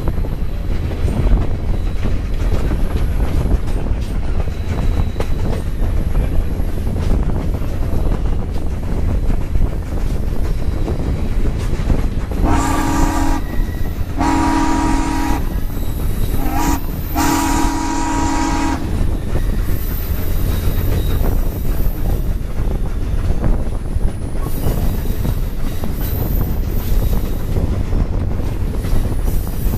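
Steam locomotive whistle blowing four blasts, long, long, short, long, the grade-crossing signal, about halfway through. Under it runs the steady rumble of the passenger cars rolling on the rails.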